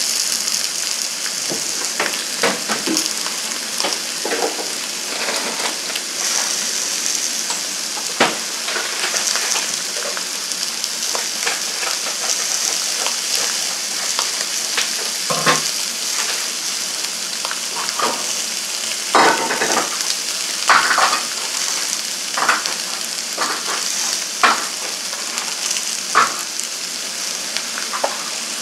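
A bone-in beef rib steak and sliced vegetables sizzling on an electric contact grill: a steady high hiss with scattered pops and crackles.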